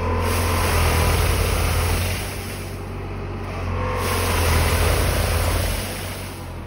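Spedo Fruipick tractor-driven hydraulic trunk shaker clamped on a young olive tree, shaking it to drop the olives. The engine and shaker drone rise in two surges, one for the first two seconds and another from about four to six seconds, then ease off.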